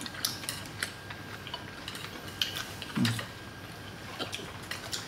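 A hand-twisted wooden spice mill grinding, giving a light run of small clicks and ticks. A short vocal sound comes about three seconds in.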